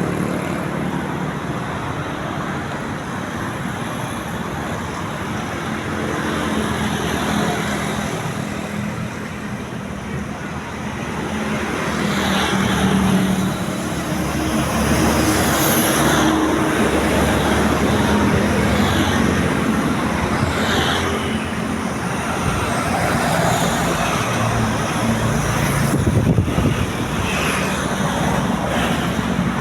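Road traffic: vehicles running and passing, a steady engine hum that grows louder about twelve seconds in.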